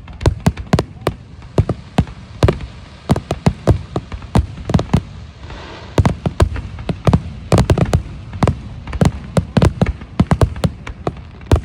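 Fireworks going off in a rapid, overlapping series of bangs, several a second, with a stretch of crackling about five to six seconds in.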